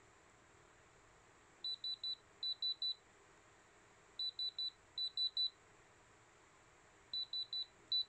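Handheld diamond pen tester beeping in quick runs of three high-pitched beeps, two runs close together, repeated about every two and a half seconds. The beeping is its diamond reading as the probe touches a moissanite stone: the stone passes the tester.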